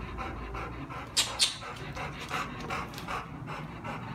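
Dogs panting steadily, about three breaths a second. Two brief sharp high-pitched sounds come just over a second in.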